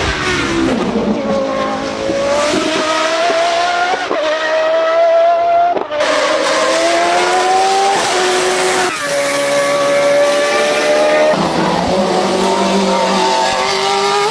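Judd racing engine at high revs, its pitch sliding down at first, then climbing and dropping back several times as the car goes up through the gears.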